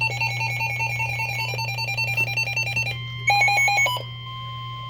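Electronic alert tones. A fast-pulsing, ringtone-like tone runs for about three seconds. It gives way to steady tones and a short, louder burst of rapid beeps.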